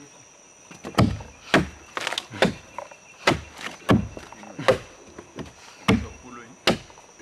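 Hand chopping tools striking into a large felled hardwood log as it is hollowed into a dugout canoe: about nine sharp thunks at an uneven pace, two men chopping at once.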